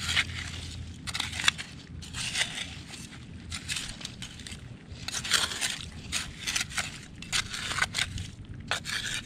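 Metal hand trowel digging for clams in a shell-covered beach: the blade scrapes and crunches through mussel and barnacle shells and wet gravel in many uneven strokes.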